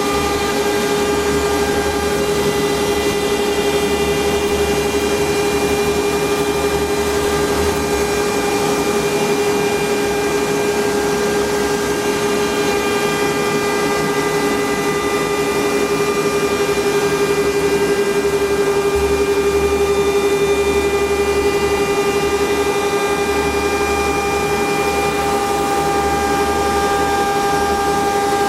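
CNC router running a slow V-carve: the spindle holds a steady, high whine under a noisy hiss, with a low hum from the machine that swells and fades as it moves.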